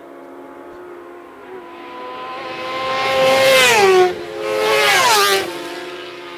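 Two superbike racing motorcycles at full throttle approach and pass close by one after the other, about a second apart. The engine note of each drops sharply in pitch as it goes by, then fades.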